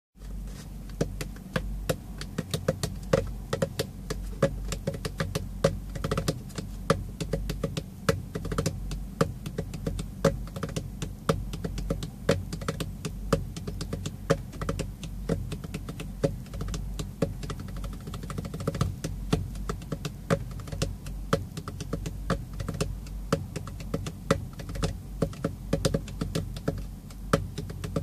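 Fingers drumming on a plastic milk bottle as a hand drum: quick, rhythmic taps and slaps kept up without a break, over a steady low rumble.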